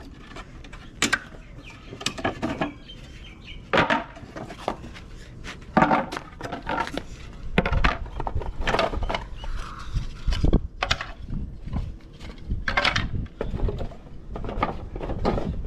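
Irregular knocks, clicks and clatter of hard pieces being handled and pulled apart.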